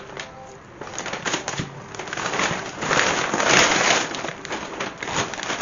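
Grocery bags rustling and crinkling as shopping is unpacked, with crackly handling noises that grow louder in the middle.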